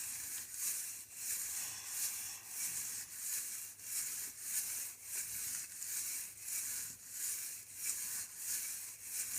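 A steady, rhythmic rattle of a little over two shakes a second, each shake a hissy, rustling burst.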